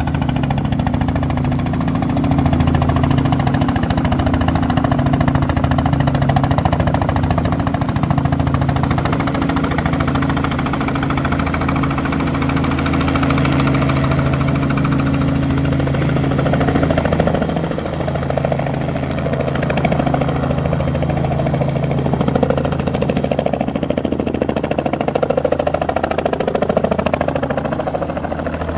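Light two-bladed helicopter's engine and rotor running steadily as it comes in, hovers and sets down on the pad, the low drone changing in tone about halfway through.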